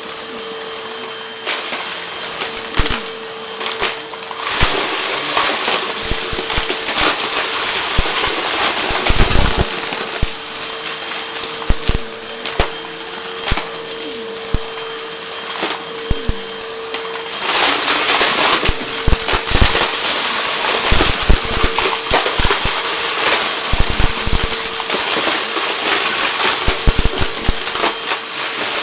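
Vacuum cleaner running with a steady motor whine while it sucks up crunchy debris, the grit crackling and popping as it rattles through the cleaner. It gets louder about four and a half seconds in, and the whine drops out briefly around two-thirds of the way through.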